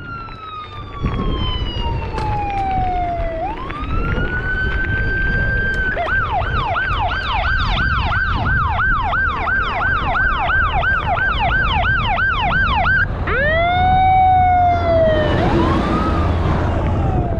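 Fire truck siren: a slow wail falling and rising, then a fast yelp of about two to three sweeps a second for several seconds, then a slow wail again. Near the end the truck passes close and its engine rumble grows louder.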